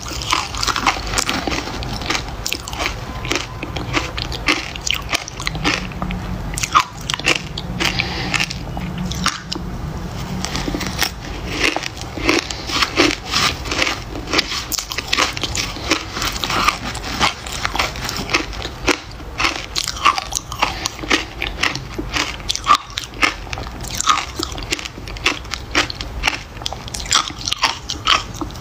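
Freezer frost being crunched: a near-continuous run of crisp crunches from mouthfuls being bitten and chewed and a spoon breaking into the frost in the bowl.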